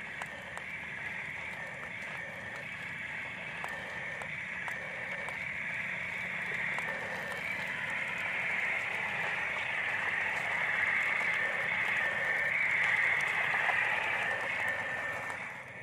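Radio-controlled toy dump truck's small electric motor and gears whirring as it drives over paving stones, getting louder as it comes closer.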